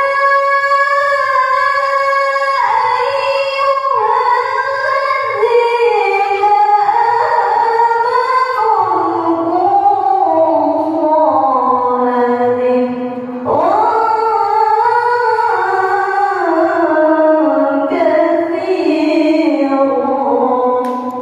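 A woman reciting the Qur'an in melodic tilawah style into a microphone: long held, ornamented phrases that step downward in pitch, with a short breath about two-thirds of the way through before a new phrase begins high again.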